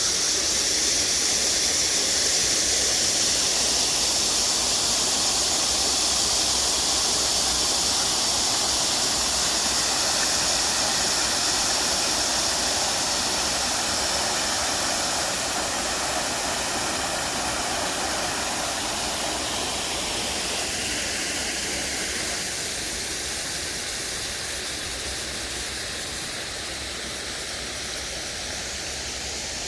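Mountain valley stream rushing steadily over rocks, its hiss easing off a little through the second half.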